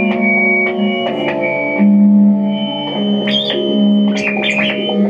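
Live experimental electronic noise music: a steady, organ-like drone of several held tones, shifting a little as the layers change. About three seconds in, brief high squeaks and chirps sound over the drone.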